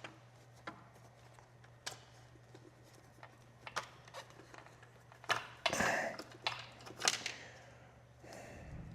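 Faint scattered clicks and short scrapes of a small plastic cap being worked off a bolt head on a motorcycle's radiator mount, a few louder scrapes about two-thirds of the way through.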